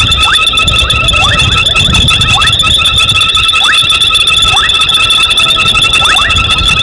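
Night chorus of frogs at a waterhole: steady, pulsing high trills at several pitches, crossed by short rising whistled calls repeated irregularly many times.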